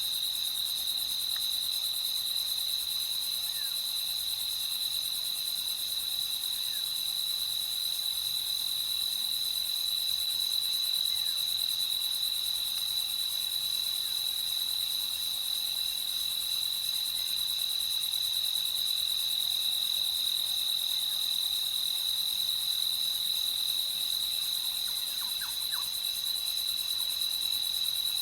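Crickets trilling in one steady, unbroken high-pitched chorus at night, with a few faint short calls near the end.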